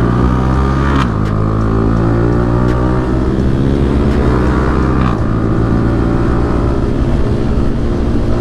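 Yamaha R15M's 155 cc single-cylinder engine heard from the rider's seat, accelerating up through the gears. The engine note climbs, drops abruptly at an upshift about a second in, climbs again, drops at a second upshift about five seconds in, then pulls on steadily.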